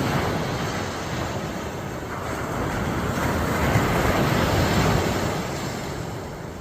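Ocean surf washing onto a beach, a rushing noise that swells to its loudest in the middle and eases off near the end.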